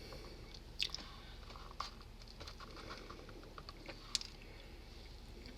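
A person chewing a mouthful of breakfast sandwich close to the microphone, faint wet mouth sounds with a few sharp clicks, the loudest about a second, two seconds and four seconds in.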